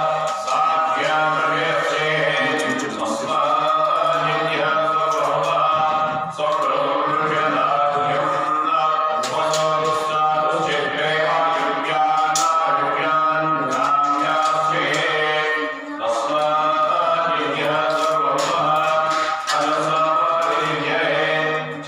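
Hindu devotional chanting sung continuously, with a steady low tone underneath.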